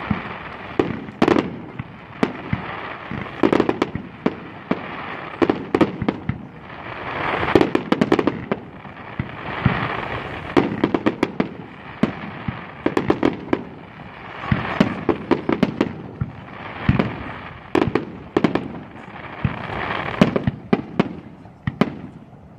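Aerial fireworks shells bursting one after another, with sharp bangs that come singly and in quick clusters. Between the bangs there are swelling stretches of hiss and crackle.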